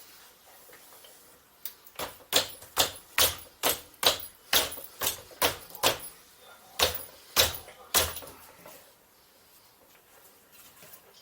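A run of about thirteen sharp knocks, roughly two a second with a short pause partway, as the electric hub-motor wheel is struck to free its axle from the bicycle frame.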